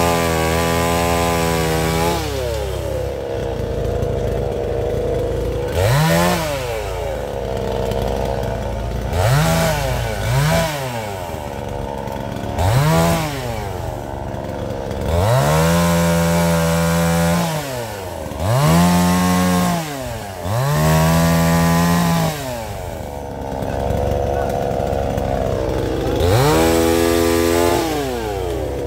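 Small handheld chainsaw cutting tree branches. It revs up in about nine bursts, some brief and some held for a second or two while cutting, and drops back to a lower running sound between them.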